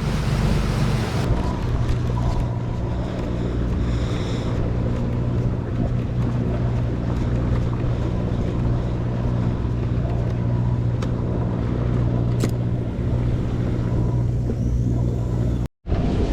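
A sportfishing boat's engine running steadily under way, a low, even hum with a continuous wash of noise over it.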